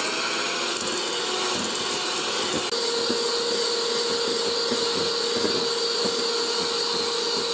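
Electric hand mixer running steadily, its beaters whisking egg yolks and sugar in a stainless steel bowl. A steady motor whine, with a brief dip about two and a half seconds in.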